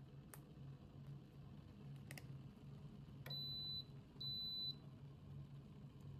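A few faint crinkles and clicks of a paper drip-coffee bag being handled and torn open, then two short, high electronic beeps about half a second each, which are the loudest sounds.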